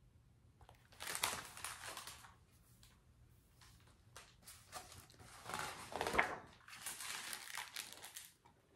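Paper pages of a hardcover picture book rustling and crinkling as they are handled and turned, in two spells: a short one about a second in and a longer one from about five seconds on.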